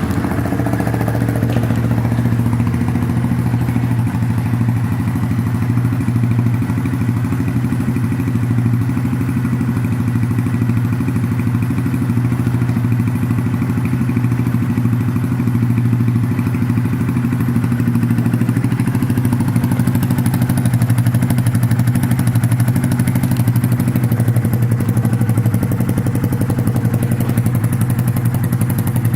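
Honda Grom 125's single-cylinder engine idling steadily through an aftermarket exhaust, fitted with pod air filters.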